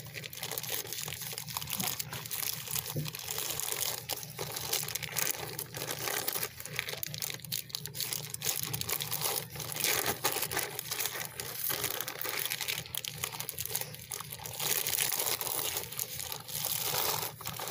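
Plastic sheeting crinkling and rustling unevenly as gloved hands press and roll a burrito wrapped in it.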